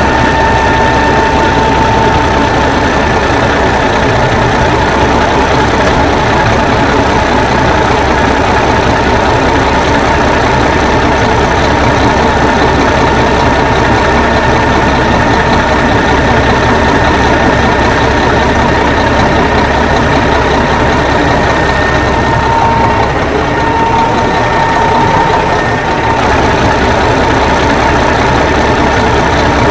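Ford 900 truck engine idling steadily, with a thin steady whine over the engine noise.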